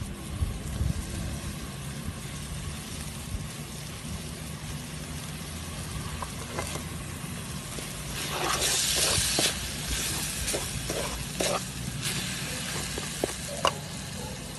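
Spice paste frying in a metal pan while it is stirred with a wooden spoon, over a low steady rumble. About eight seconds in the sizzling grows louder for a couple of seconds, then the spoon scrapes and knocks against the pan several times.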